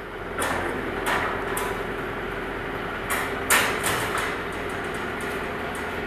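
Bandsaw blade sharpening machine's motor running with a steady hum. Over it come several sharp metallic clanks and rattles as the long steel sawmill bandsaw blade is handled and fitted onto the machine, the loudest about three and a half seconds in.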